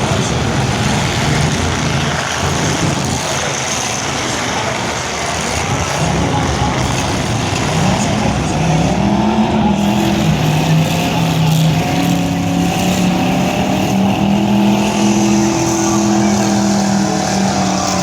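Demolition derby trucks' engines running and revving hard over a steady din. From about halfway through, an engine's pitch rises and then holds high in long revs.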